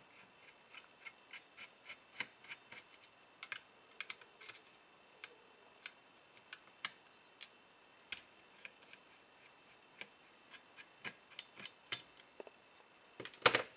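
Small irregular clicks of a screwdriver tip working the screws that hold a light meter's circuit board in its plastic case, with one louder knock near the end.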